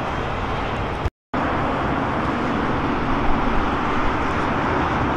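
Steady outdoor engine roar and traffic noise around an airfield, with no distinct events. It cuts out completely for a moment about a second in, then resumes at much the same level.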